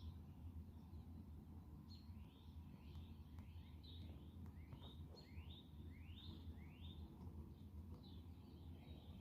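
Birds chirping faintly: a run of short rising chirps, about two a second, through the middle of the stretch, over a low steady rumble.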